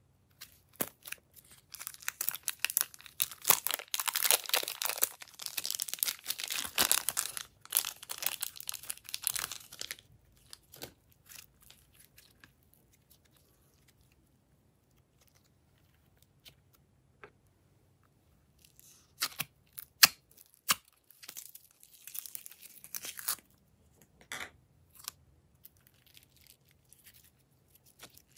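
Slime squeezed and pulled apart by hand, giving sticky crackling and tearing sounds: dense for several seconds, then a quiet stretch, then scattered pops and crackles with one sharp pop about twenty seconds in.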